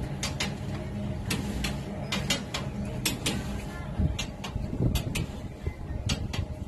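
Wooden machinery of a working paltrok wind sawmill: irregular knocks and clicks, two or three a second, over a low steady hum that fades about halfway through.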